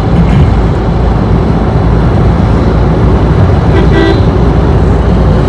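Loud, steady rumbling noise, heaviest in the low range, with a brief horn-like toot about four seconds in.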